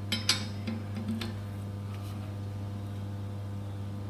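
A few light metallic clicks in the first second or so as a hex key is seated and turned in the fixing bolt of a Shimano freehub, tightening it onto the hub. A steady low hum runs under it.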